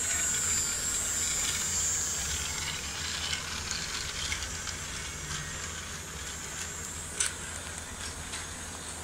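Battery-powered toy train running on plastic track: a small electric motor's high whine with light rattling clicks, the whine fading after about two seconds, and one sharp click about seven seconds in.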